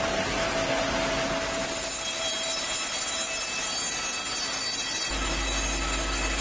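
Steady industrial machinery noise from timber-handling equipment, with thin high-pitched squealing tones over a rushing din. About five seconds in, the sound changes to a low steady hum of running machinery.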